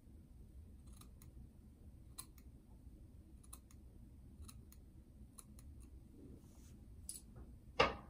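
Small 5-inch scissors snipping beard hair along the jaw and neck line: soft, scattered snips roughly a second apart. Near the end there is a single louder knock.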